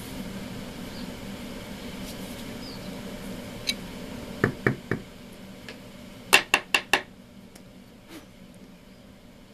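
Sharp metallic clicks and knocks as vice grips and an aluminum bar are handled against a tabletop: three about halfway through, then four louder ones in quick succession, over a low steady hum that drops away after them.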